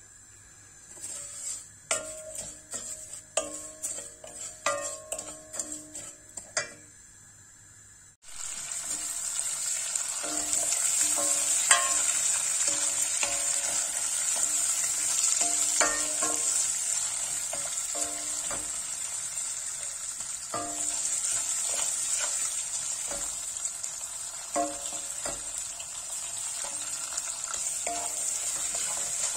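Vermicelli sizzling as it fries in hot fat in a stainless-steel pot, stirred with a wooden spoon that knocks and rings against the pot now and then. The sizzle starts suddenly about eight seconds in, after a run of ringing taps.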